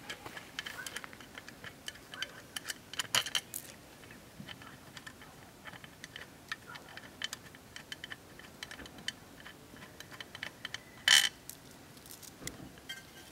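Small metallic clicks and taps from hands loosening the bolts on a sealed, vented metal well cap. A louder clink comes near the end as the cap is worked loose.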